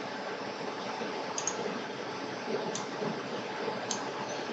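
Steady background hiss with four faint, sharp clicks about a second apart, from someone working at a computer.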